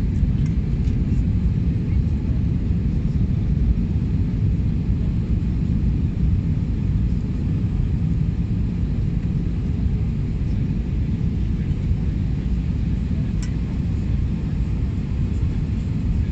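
Steady low rumble of engine and airflow noise inside the cabin of an Airbus A320 descending on approach to land.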